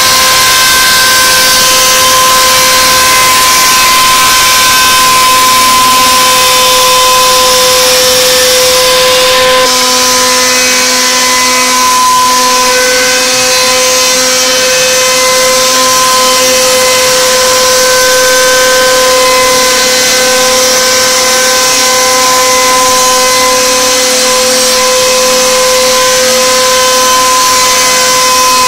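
CNC router's spindle running with a steady high whine over a hiss, as it carves wood.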